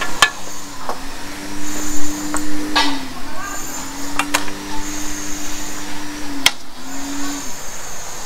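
A motor running in three spells of a few seconds, each one dropping in pitch as it stops, with a few sharp clicks in between.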